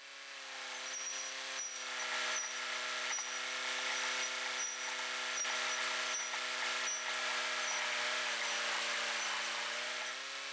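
John Deere 2750 farm tractor's diesel engine running steadily, with a faint regular click about every 0.7 s. Its pitch sags briefly near the end and then picks back up.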